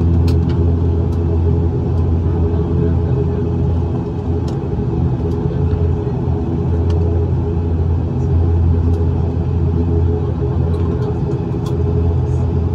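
Cabin drone of an ATR 72-600's Pratt & Whitney PW127 turboprops and propellers: a steady low hum with several steady tones over it, holding an even level. A few faint light ticks from the cabin.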